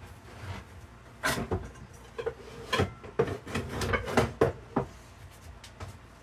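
Pans clattering and a kitchen cupboard knocking as stacked Tefal pans are pulled out: a string of sharp knocks and clinks from about a second in until nearly five seconds.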